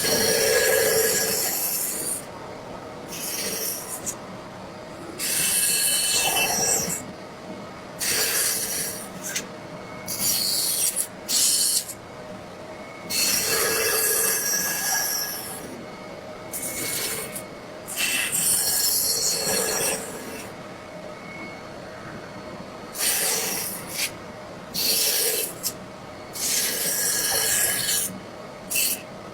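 A hand carving tool scraping and cutting wood in repeated strokes, each lasting about half a second to two seconds, some with a thin squeak, separated by short pauses.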